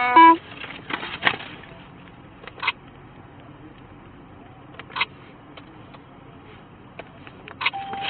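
A short, loud electronic chime from the patrol car's equipment, dropping to a lower note, followed by a few soft clicks and handling rustles, and a brief beep near the end.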